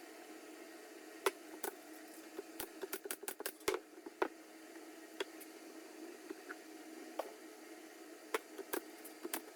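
Irregular light clicks and taps over a steady low hum, bunched together a few seconds in and then spreading out.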